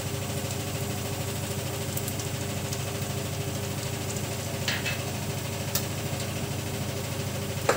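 A steady low machine hum with a faint sizzle of cumin seeds and dried red chillies frying in hot oil in a steel pot, and a few light clicks.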